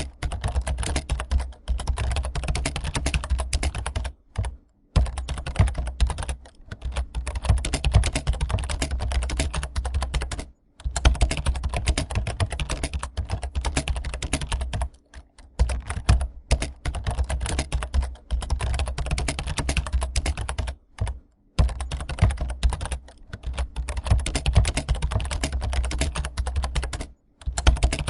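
Fast, continuous typing on a computer keyboard: a dense stream of key clicks, broken by several brief pauses.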